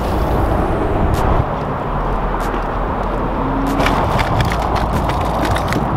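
Steady wind rumble on the microphone over open water, with a crackle of a plastic bag being handled in the second half.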